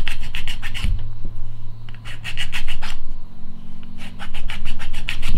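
Hobby file rasping back and forth across a hard plastic RC car part, filing glued-in plastic sprue plugs flush where stripped screw threads were repaired. Quick strokes, about five a second, come in three runs with short pauses between them.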